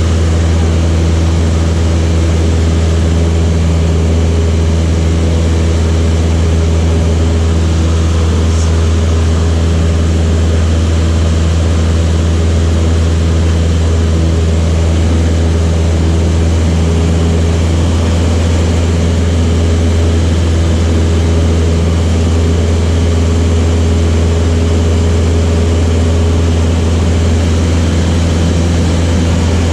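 Light propeller aircraft's piston engine running steadily: a loud, low, even drone that holds its pitch, with the upper tones shifting slightly about eighteen seconds in.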